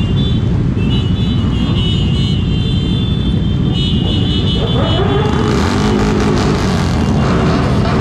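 Several motorcycle engines running together in a loud, steady rumble, with one engine revving up in a rising pitch about five seconds in.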